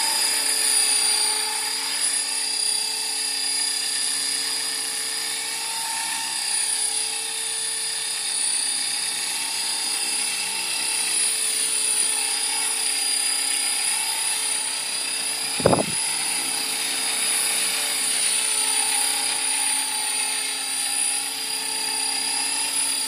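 Small 450-size electric RC helicopter (Belt CPX, T-Rex 450 mod) hovering: a steady high motor-and-rotor whine whose pitch wavers slightly as the throttle and collective are worked. A single short thump about two-thirds of the way through.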